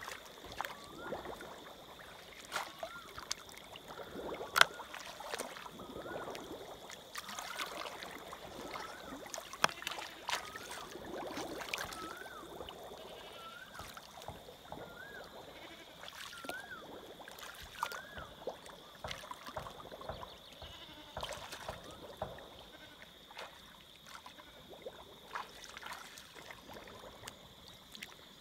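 Shallow paddy water sloshing and splashing as hands grope through it, with scattered sharp clicks and knocks. A steady high insect drone runs underneath. Short wavering calls repeat through roughly the first half.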